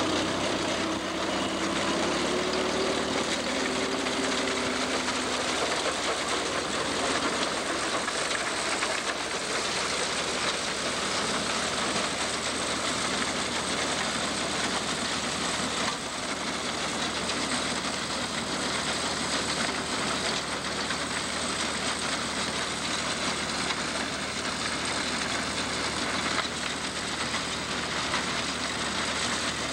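Allis-Chalmers tractor engine running steadily under load as it pulls a grain binder cutting wheat, mixed with the running noise of the binder's cutter and binding mechanism.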